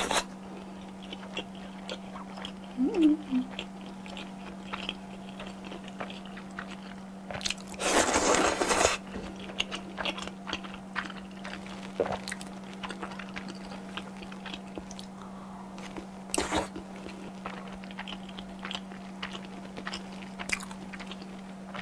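Close-miked eating: chewing salmon sushi with small wet mouth clicks, and one louder, longer slurp lasting over a second about a third of the way in, with a shorter one later.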